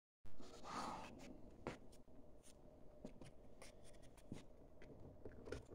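Faint rustling with scattered small clicks and taps, with a louder rustle just after the start.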